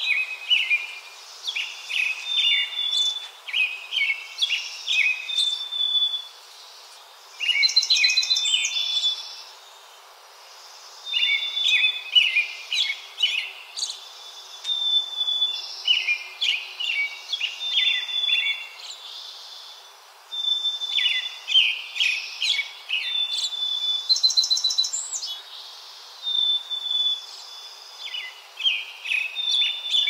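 A small songbird singing: varied phrases of quick whistled notes, trills and buzzy notes, each a few seconds long, repeated over and over with short pauses between them.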